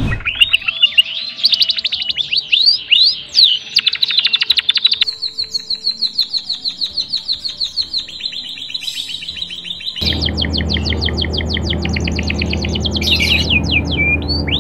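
Male white-headed munia singing: rapid runs of high-pitched notes with rising glides, then a long fast trill. From about ten seconds in, a steady low hum sits under the song.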